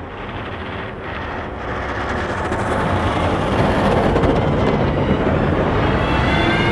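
Steady rushing spray of water over a plastic toy being washed, growing louder over the first few seconds.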